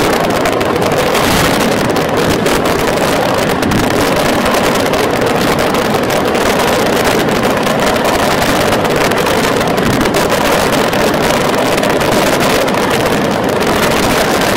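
Daytime fireworks barrage: a dense, rapid-fire run of explosions and crackles, so close together that they merge into one continuous loud noise.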